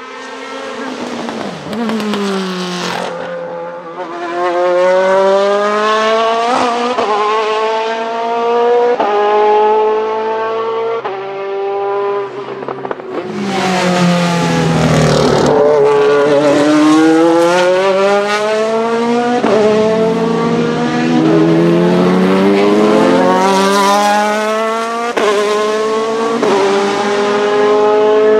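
Ferrari F430 GT2 race car's 4-litre V8, the revs falling as it slows at first, then accelerating up through the gears of its sequential gearbox, with a sudden drop in pitch at each upshift. It passes close by about fourteen seconds in, the pitch sweeping down and up as it goes, then pulls away still changing up.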